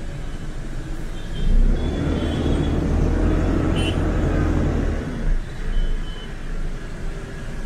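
Ashok Leyland bus's diesel engine heard from inside the cab, pulling away in stop-and-go traffic. Its rumble rises about a second and a half in and eases off after about five seconds, with road traffic around it.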